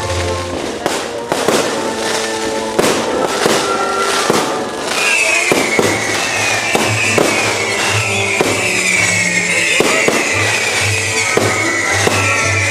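Fireworks going off in a rapid series of bangs and pops over music. About five seconds in, a high, wavering whistle joins and carries on.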